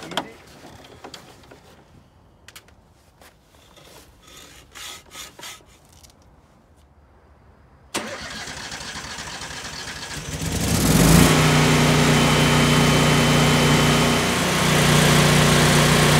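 Kohler 20 kW automatic home standby generator's engine starting about two-thirds of the way in and settling into a steady run. Before that there are only faint clicks and handling sounds.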